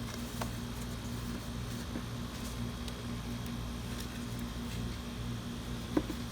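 Steady low electrical hum, with a few faint clicks and one sharper click near the end as cardboard and a hot glue gun are handled.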